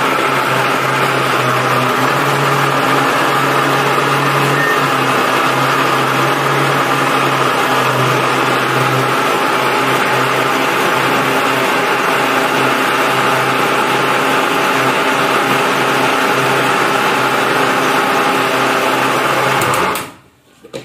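Indian electric mixer grinder running steadily at full speed, wet-grinding mint, coriander and green chillies with water into a fine paste in its steel jar. The motor cuts off near the end and winds down quickly.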